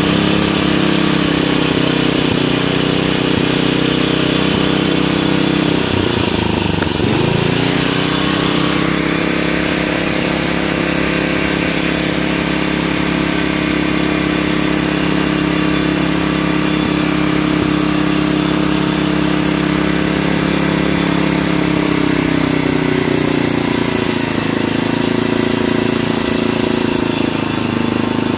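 Single-cylinder 10 hp Briggs & Stratton lawn tractor engine running on a newly fitted one-piece Flo-Jet carburetor. About six seconds in, its speed drops sharply and picks back up, then it runs steadily.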